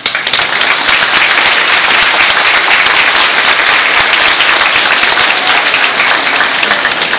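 Audience applauding loudly. The clapping starts suddenly and holds steady.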